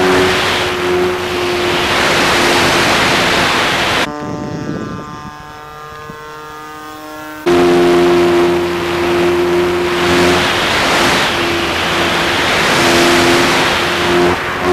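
FMS P-51 Mustang RC model's electric motor and propeller running at high power, with heavy wind rush on the onboard camera. About four seconds in the power drops, leaving a quieter thin whine for a few seconds. Then full power comes back abruptly.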